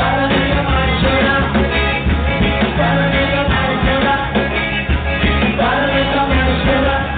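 Live forró band playing loud through a PA system, with a singer over accordion, bass, zabumba and drum kit.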